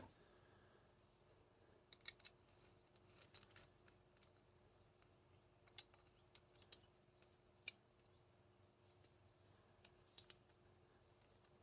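Faint, scattered small clicks and taps as an airsoft CO2 pistol's parts are handled, a dozen or so in irregular clusters.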